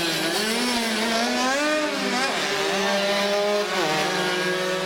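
Small classic racing motorcycles (cuppers) passing at race speed. The engine pitch climbs, then falls back sharply about two seconds in and again a little before four seconds as the rider shifts up, with more than one engine heard at once.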